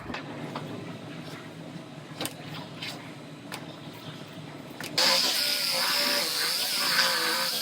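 Low hum with scattered clicks and taps, then about five seconds in a power tool cuts in loudly with a high steady whine, its pitch wavering as it bites: the start of cutting off a car's rear body panel.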